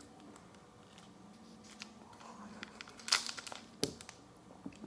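Thin wrapper of a small wrapped sweet crinkling and tearing as it is unwrapped by hand, with a few short sharp crackles about three seconds in and again just before four seconds.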